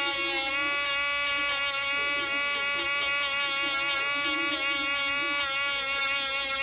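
HARDELL mini cordless rotary tool's small electric motor running at a steady speed, a constant high buzzing whine.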